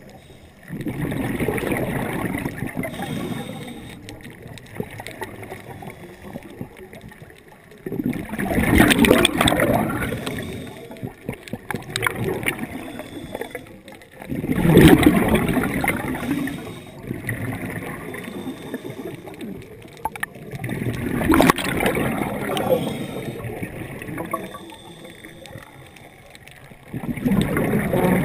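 Underwater, a scuba diver's exhaled bubbles gurgle out of the regulator in a swell of two to three seconds about every six seconds, with quieter stretches between breaths.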